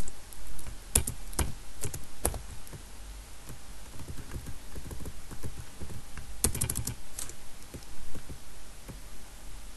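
Typing on a computer keyboard: scattered single keystrokes with a quick run of several keys about six and a half seconds in.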